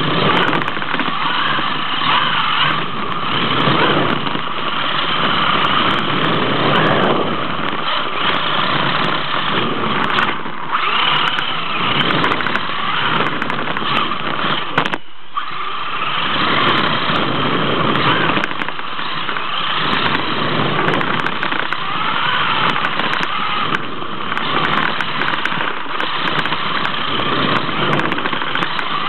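Radio-controlled drift car's motor running continuously, its pitch rising and falling with the throttle, with a brief dropout about halfway.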